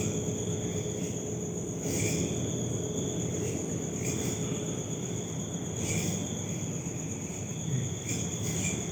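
Crickets trilling steadily in a high, thin tone, growing louder in short pulses about every two seconds, over a low steady rumble.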